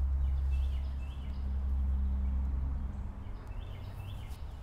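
Outdoor ambience under trees: a steady low rumble that eases off about three seconds in, with two pairs of short, high bird chirps.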